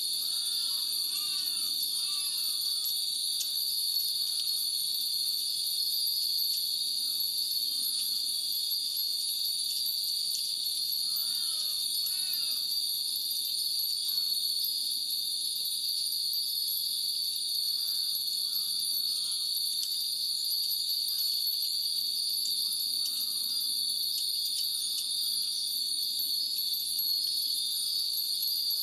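Many wind bells (furin) tinkling in the breeze, in scattered light strikes, over a steady high drone of cicadas.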